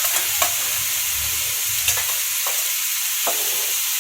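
Broccoli, vegetables and paneer frying in ghee in a pan, a steady sizzle, with a few sharp clicks of a spoon against the pan as they are stirred.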